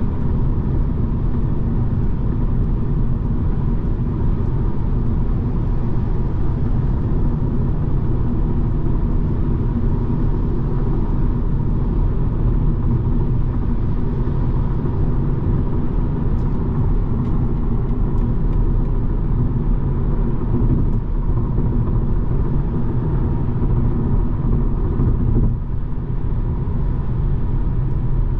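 A BMW 220d xDrive Gran Coupe driving steadily: a low, even rumble of tyre and road noise mixed with its four-cylinder diesel engine, dipping briefly about 25 seconds in.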